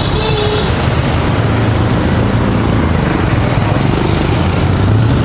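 Steady road traffic noise heard while riding along a town street, with motorbike and car engines running close by.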